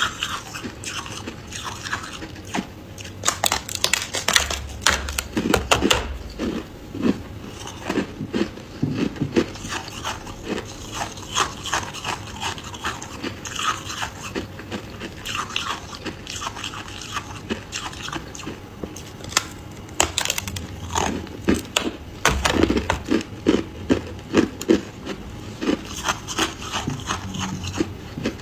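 Freezer frost being bitten and chewed: dense runs of crisp crunching, heaviest a few seconds in and again after about twenty seconds, with quieter chewing between.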